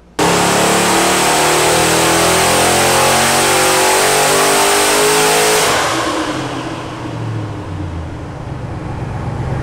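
Twin-turbocharged 427 cubic-inch LS V8 making a full-throttle dyno pull on 14.7 psi of boost, its pitch climbing steadily. About five and a half seconds in, the throttle closes and the engine falls back toward idle, running much quieter and lower.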